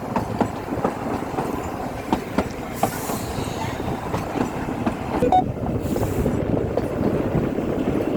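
Kalka–Shimla narrow-gauge toy train running: a steady rumble of the moving coaches with irregular clicking of the wheels over the rail joints.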